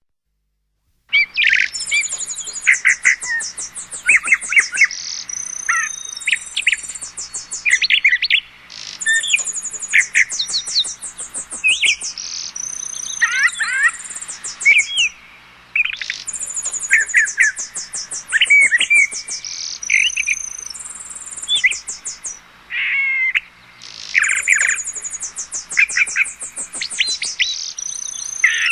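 Birdsong sound effect from an electronic keyboard: a recording of many birds chirping and trilling that cuts in suddenly about a second in. It loops, the same phrase of chirps repeating about every seven to eight seconds.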